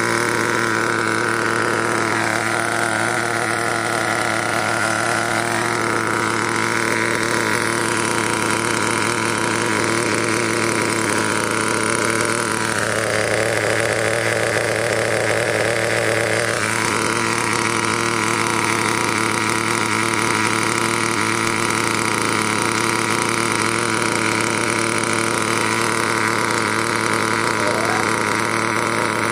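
Traxxas 2.5 nitro engine in a T-Maxx RC truck idling steadily with a high buzzing note. The freshly fitted second-hand engine is running smoothly.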